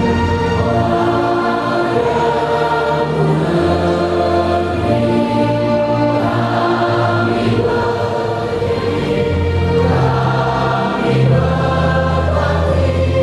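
Choral music: a choir singing slow, long-held notes over accompaniment.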